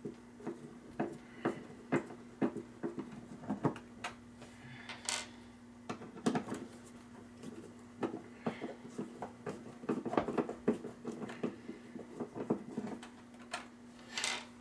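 Irregular clicks, taps and a few brief scrapes of a screwdriver and hands working a plastic computer case fan and its sheet-metal mounting plate, unscrewing the plate, over a steady low hum.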